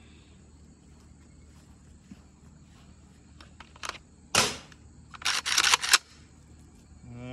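Metallic clacks of a JTS AK-style 12-gauge shotgun's action being worked by hand: one sharp clack about four seconds in, then a quick run of several clacks a second later. This is typical of clearing a shell that failed to eject.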